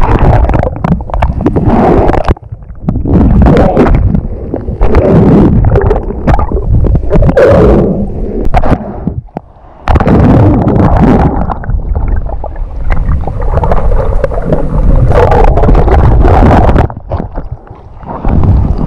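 Sea water sloshing and gurgling close to the microphone in choppy surf, dropping away briefly three times.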